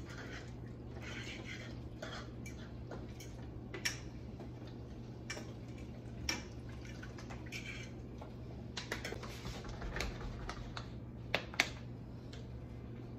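Water poured from a plastic water bottle into a foil roasting pan: faint splashing and scattered plastic clicks and crackles, the sharpest two close together near the end, over a steady low hum.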